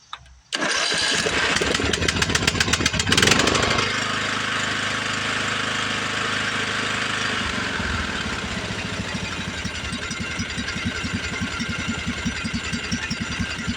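Craftsman LT1000 lawn tractor's 20 hp Briggs & Stratton OHV engine cranked by the starter and firing up on choke after about three seconds, then running steadily. About eight seconds in its note drops and the regular exhaust pulses become distinct.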